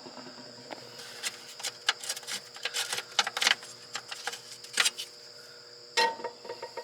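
Irregular light metallic clicks and taps in scattered clusters, from hand work on a diesel engine's air cleaner housing and its wing nuts.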